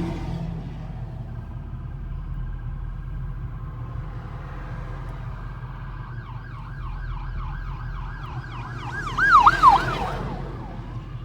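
Ambulance siren coming closer, heard from inside a moving car over the steady low road and engine rumble. It starts as a faint steady tone and switches about six seconds in to a fast yelp of about four sweeps a second, which grows louder and is loudest near the end, where the last sweeps dip lower as it passes.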